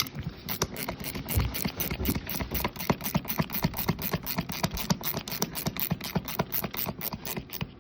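Ratchet clicking rapidly and evenly, several sharp clicks a second, as a ratchet mechanism is turned during a winch rebuild.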